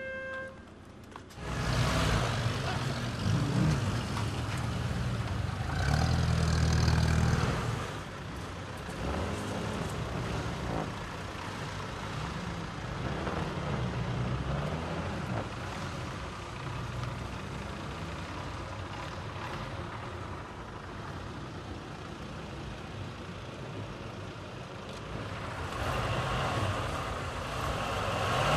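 Engines of a column of vintage US Army vehicles, jeeps and Dodge trucks, running as the convoy moves. The engine noise comes in suddenly about a second and a half in and is loudest for the next several seconds, then settles to a steady rumble.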